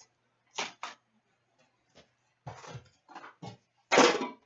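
Card packs and their packaging being handled and opened: a string of short rustles and clicks, about six, the loudest near the end.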